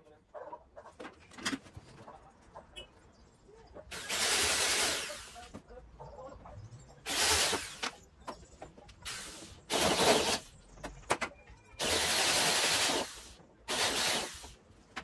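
Cordless drill with a spot-weld bit boring out spot welds in a car's sheet-steel rear body panel, cutting only the top layer of metal. It runs in six short bursts of about half a second to a second and a half, with small clicks and handling knocks between them.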